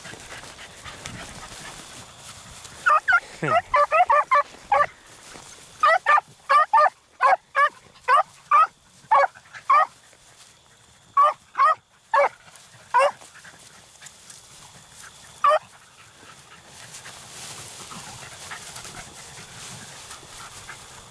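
Beagles barking in short, sharp calls, several a second, as the hounds give tongue while trailing a rabbit. The calls come in a quick string from about three seconds in to about thirteen seconds, with a last single bark a little later, over the rustle of brush.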